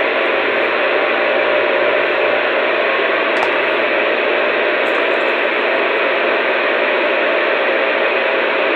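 Steady radio static hiss, as loud as the voices, with no one transmitting on the channel.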